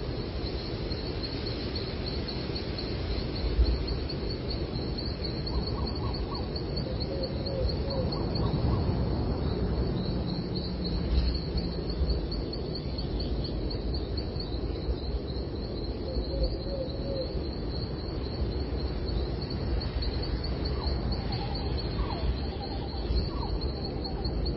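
Songbirds chirping in short, scattered calls over a steady, fast-pulsing high trill, with a constant low rumble of background noise beneath.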